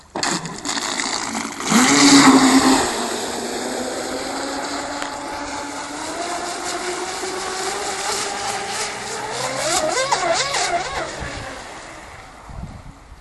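Twin electric motors of a 40-inch 12S fast-electric drag hydro RC boat spooling up at full throttle with a rising whine and spray hiss, loudest about two seconds in. The boat then runs at speed, its whine slowly climbing in pitch, wavering around ten seconds in and fading as it draws away.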